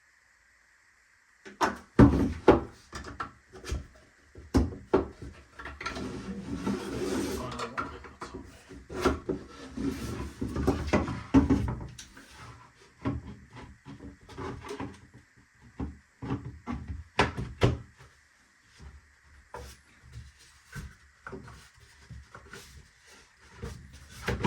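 Plastic toolbox parts being handled and pressed together: a busy run of clicks, knocks and taps, with stretches of scraping and rubbing as pieces slide into their slots. It starts after a second or so of silence and thins out toward the end.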